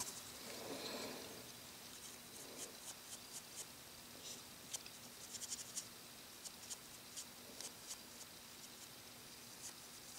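Faint, short scratchy strokes of a soft-bristle paintbrush dry-brushing with very little paint on the bristles, coming in irregular clusters.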